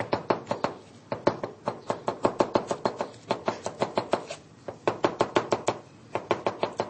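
Kitchen knife chopping crushed garlic cloves on a plastic cutting board: quick runs of blade knocks, about five or six a second, broken by short pauses.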